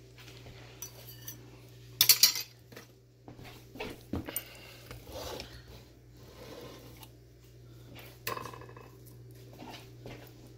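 Serving utensils scraping and knocking against a skillet and a pot as chicken and mashed potatoes are scooped onto a plate, with the loudest clatter about two seconds in and again about eight seconds in. A low steady hum runs underneath.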